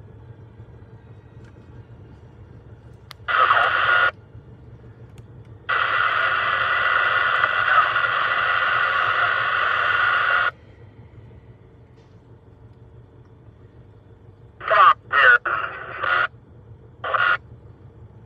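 Two-way radio transmissions: thin, garbled voice chatter that cuts in and out abruptly, a short burst about 3 s in, a long one of about five seconds, then a run of short bursts near the end. A low, steady engine hum runs underneath.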